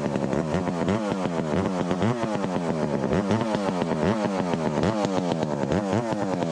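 Ported Echo 25T top-handle two-stroke chainsaw cutting, its engine pitch dipping and recovering over and over, about one and a half to two times a second.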